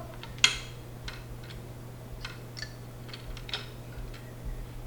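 Small clicks and taps of computer parts being handled and fitted together during a PC build, with one sharp click about half a second in and scattered lighter clicks after it. A steady low hum runs underneath.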